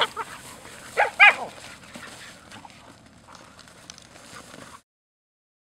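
Dogs at play, giving a few short barks in the first second and a half, then quieter scattered sounds. The sound cuts off suddenly near the end.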